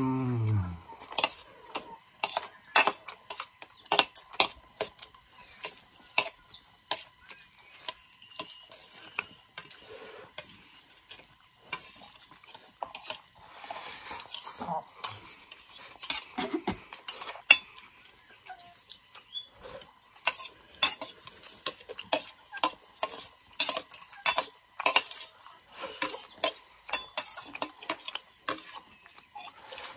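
Cutlery clicking and scraping on a plate in quick, irregular strokes while someone eats fried noodles.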